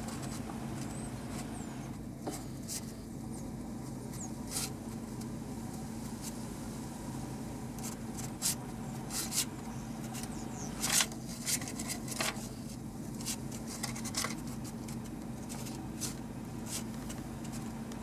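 Steady low mechanical hum, typical of an idling vehicle engine, with a dozen or so sharp clicks scattered through it.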